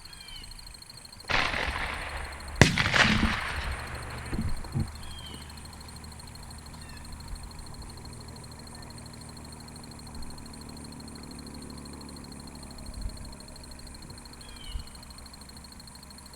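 Shotgun fire in a dove field: one sharp, loud shot about two and a half seconds in, with more reports close behind it, just after a second-long burst of rushing noise. Faint short bird chirps now and then.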